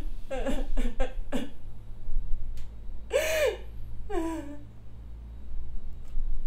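A person sobbing: a few short gasping breaths, then two longer wavering cries about three and four seconds in, over a low steady hum.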